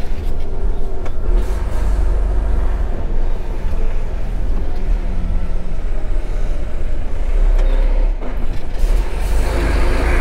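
Lorry's diesel engine and tyres running with a steady low rumble as the truck drives along a village street.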